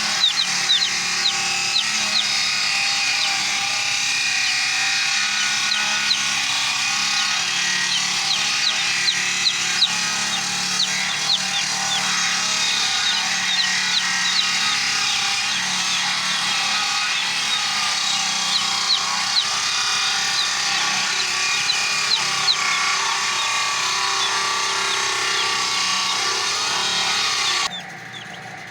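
Chainsaw running steadily while cutting wood, cutting off abruptly about a second before the end.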